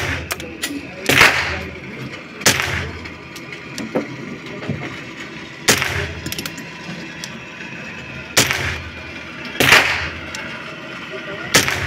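Gunshots at a shooting range, about seven sharp reports at irregular intervals of one to three seconds, each trailing off in an echo, with small clicks in between.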